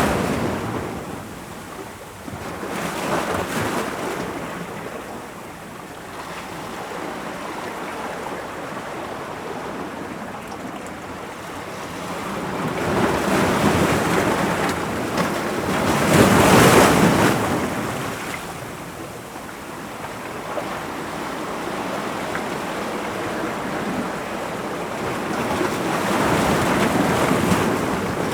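Ocean waves breaking on rocks: a steady wash of surf that swells and ebbs, with the strongest wave crashing about 16 to 17 seconds in and smaller surges near 3 and 13 seconds.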